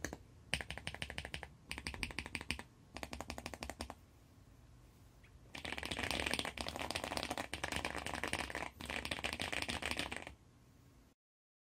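Fast typing on a homemade mechanical keyboard with a cardboard base, many rapid keystrokes. It comes in three short runs, then a longer, louder run that stops about ten seconds in.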